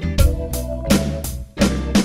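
Straight eighth-note drum groove played on an electronic drum kit, with strong hits about every half to three-quarters of a second, over a backing track of sustained bass and chord notes.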